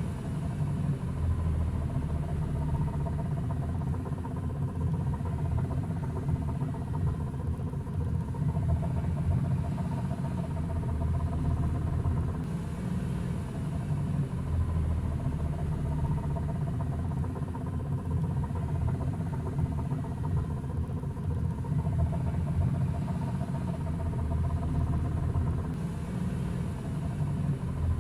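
2012 Honda N-ONE driving, with a rattle from the engine compartment over the running noise and a faint whine that rises and falls. The dealer traced the rattle to a failing driven-pulley bearing in the CVT, which needed the whole transmission replaced.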